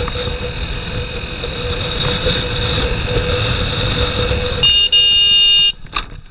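Motorcycle riding in traffic with steady engine and wind noise, then a horn blares for about a second near the end and cuts off suddenly.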